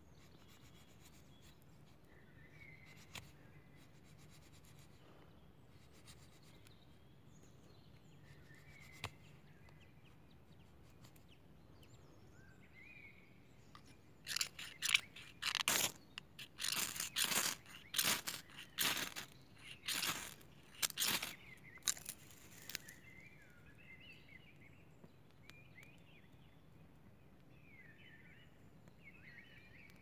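Ferrocerium fire-starter rod struck with a scraper in a run of sharp rasping strokes, about two a second for some eight seconds starting about fourteen seconds in, showering sparks onto tinder to light a fire. Around it, faint bird chirps and a few light scrapes of a knife shaving wood.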